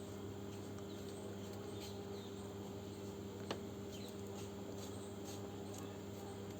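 Faint steady electrical hum with a few light ticks, and one small click about halfway through.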